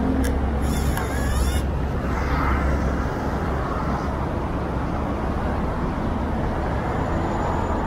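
Steady city traffic rumble. About a third of a second in, the shutter of an Aikon X-Pas 2 plastic point-and-shoot film camera clicks, followed by about a second of its motor advancing the film.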